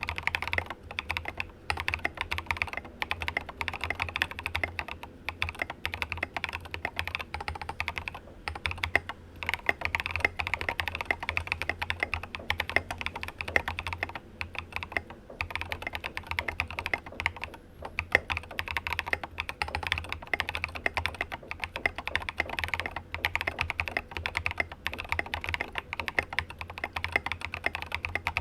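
Continuous typing on a mechanical keyboard: lubed and filmed Cobalt POM switches under SA-profile doubleshot ABS keycaps, in a Rama Works KARA with a polycarbonate plate and no sound dampening, giving a deep, thocky clack, with brief pauses between bursts of keystrokes.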